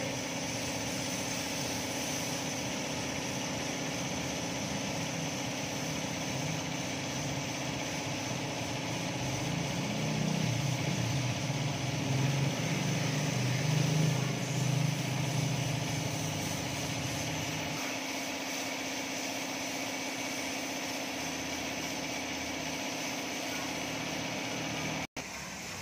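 A motor running steadily with a constant hum, growing louder and rougher from about nine to eighteen seconds in, then cutting out for an instant near the end.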